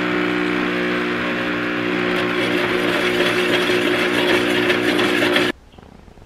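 Home espresso machine running with a steady hum over a hiss, cutting off suddenly about five and a half seconds in.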